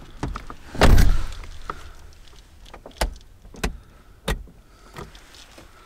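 A van's side door shut with a heavy thud about a second in, followed by a few short sharp clicks and knocks from the door's handle and fittings.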